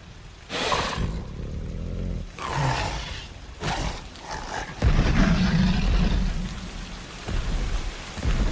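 Dinosaur-film sound effects: heavy low rumbling and rushing noise like thunder and rain, broken by several loud surges, with a Carnotaur's growls and roars.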